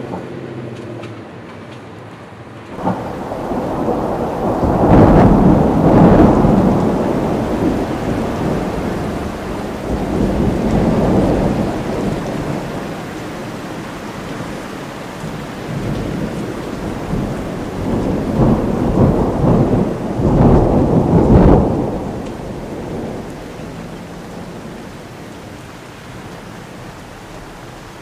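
Thunder starting suddenly about three seconds in and rolling for some twenty seconds, swelling and fading in several waves, loudest near the start and again near the end, over a steady hiss of rain.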